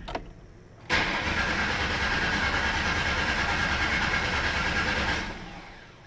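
Car engine catching suddenly about a second in and running for about four seconds on starting fluid sprayed into the intake, then dying away. With the fuel pump relay pulled, the engine gets no fuel from the tank, so it runs only on the fluid: the sign of a bad fuel pump or no-fuel condition.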